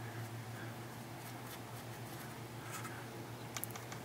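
Faint scratching of a stiff paintbrush working weathering powder onto an HO-scale plastic model locomotive, over a steady low hum, with a few small clicks near the end.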